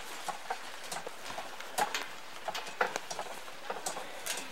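Wooden handcarts with spoked wheels rolling over a dirt trail as they are pulled, giving irregular knocks, clicks and rattles from the wheels and loaded frames, about two or three a second, mixed with footsteps.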